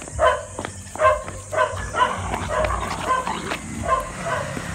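Small dogs yipping excitedly, short high barks about two a second.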